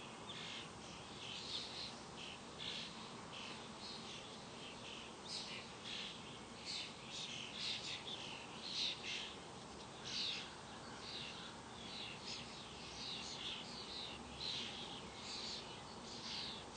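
Black-capped chickadee fledgling begging to be fed by its parent: short, high calls repeated rapidly, two or three a second, over a faint steady hiss.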